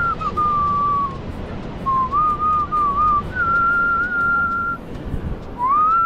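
A person whistling a tune: clear held notes with small slides between them, in three or four short phrases broken by brief pauses.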